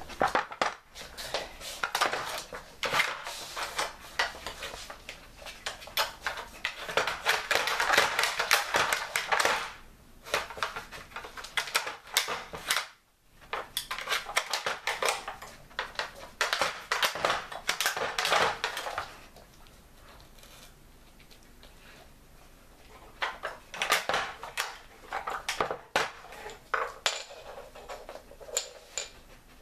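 A dog working a wooden treat-puzzle board with plastic buttons on a laminate floor: repeated clattering, knocking and scraping of wood and plastic, in bursts. There is a short break about halfway through and a quieter few seconds after that before the clatter resumes.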